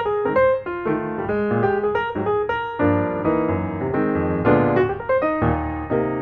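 Background piano music: a run of quick notes with chords beneath.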